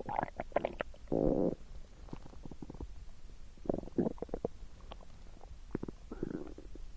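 A person's stomach gurgling and rumbling: irregular bubbling squeaks and clicks, with a longer rumble about a second in and another near the end.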